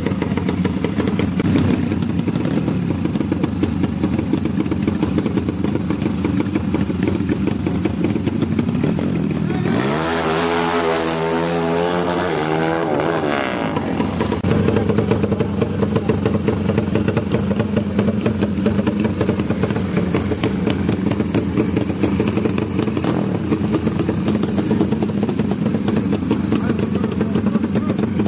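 Drag-racing motorcycle engines revving hard at the start line. About ten seconds in, a clear run of rising engine notes lasts three to four seconds as the bikes launch and accelerate away through the gears. Afterwards a steadier engine note of motorcycles running continues.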